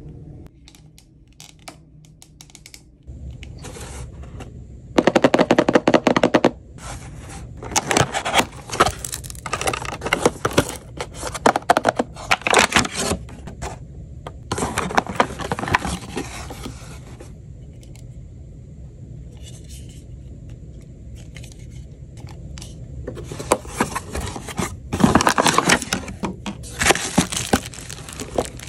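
Cardboard box and plastic packaging being opened and handled by hand: repeated bursts of scraping and crinkling, starting a few seconds in.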